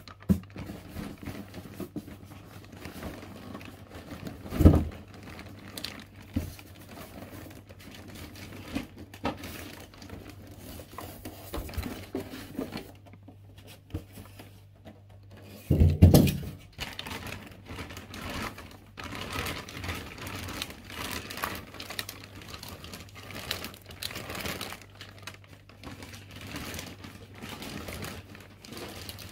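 Printer packaging being handled and pulled apart: plastic and paper crinkling and tearing, with scattered small clicks and two heavier thumps, about five seconds in and again about sixteen seconds in.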